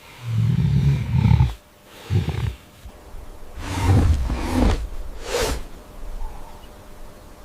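A large animal calling in several deep bursts: a long one in the first second and a half, a short one about two seconds in, then three more in quick succession in the middle, the later ones with a breathy hiss.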